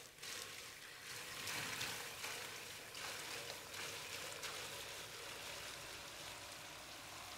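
Liquid nitrogen pouring from a dewar into a warm glass dish and boiling off as it touches the dish: a steady hiss with a few faint clicks.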